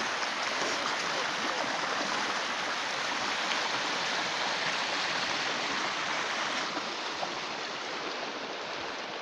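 Steady rushing noise of running water, even throughout and easing slightly near the end.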